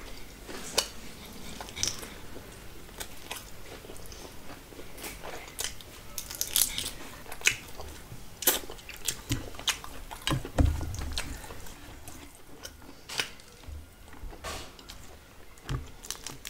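Close-up eating sounds: a person chewing and biting mouthfuls of curried fish and rice eaten by hand, with irregular wet clicks and small crunches. There is a soft low thump about ten and a half seconds in.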